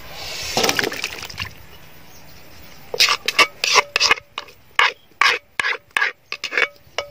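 A plastic spoon stirring and scraping wet shredded papaya salad in an enamel metal tray. From about three seconds in there is a run of short scraping strokes, about three a second, some with a faint ring from the tray.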